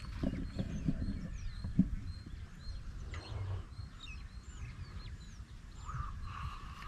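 Small birds chirping repeatedly in short, quick calls over a low rumble. About six seconds in, a held, pitched call or tone begins.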